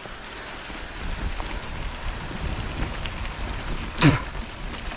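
Mountain bike rolling downhill on a wet road: a steady rumble of tyres and wind on the microphone. About four seconds in, a short sound drops sharply in pitch.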